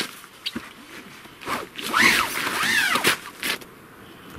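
Gear being packed into the back of an SUV: rustling and a few knocks, with a burst of squeaky rubbing about two seconds in as a folded orange pad is shoved in among the bags.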